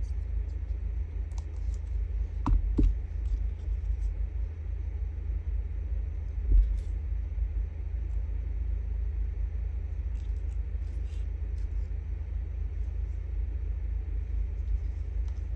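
Steady low hum, with a few soft knocks from handling a plastic glue bottle and paper strips on a table: two close together about two and a half seconds in and one about six and a half seconds in.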